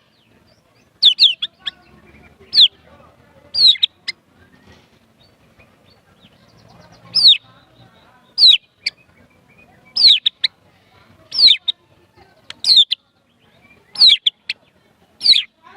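White-rumped shama singing prinia-like mimicked phrases: short, sharp, downward-sliding high notes, one every second or so, with a pause of about three seconds after the first few calls.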